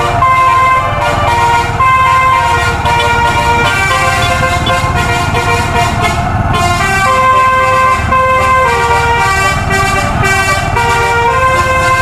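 Tunggal Jaya tour bus's telolet musical air horn playing a tune, a fast run of stepped notes, over a low rumble.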